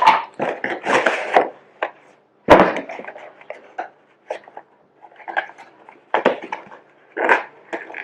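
Packaging and the vacuum's plastic parts being handled: a run of sharp knocks and short rustles, loudest about two and a half seconds in.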